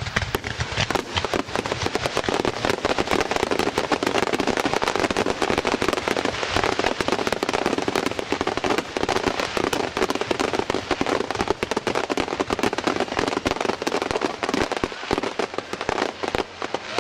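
Fireworks going off in a dense, rapid barrage: many bangs and crackles a second, overlapping without a break.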